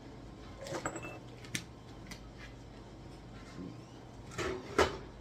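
Plastic supplement bottles and pills being handled: a few scattered clicks and rattles, the loudest near the end. Underneath is the steady hum of a dishwasher running.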